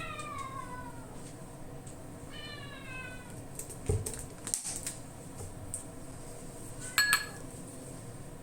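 A cat meowing twice, each call falling in pitch, followed by clinks and knocks of dishes and utensils, the loudest a short ringing clink near the end.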